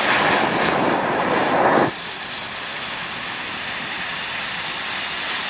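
White smoke ball firework burning with a steady rushing hiss, loudest for about the first two seconds, then settling to a softer hiss.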